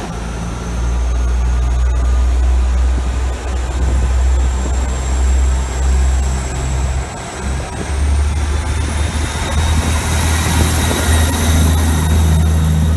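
South West Trains Class 159 diesel multiple unit (159104) pulling away, its underfloor Cummins diesel engines running hard with a deep drone. The drone dips briefly about halfway through, and a high whine rises in pitch as the train gathers speed.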